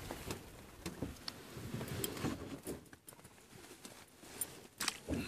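Scattered small clicks and knocks of handling as a caught fish is gripped in a cloth and unhooked in a small boat.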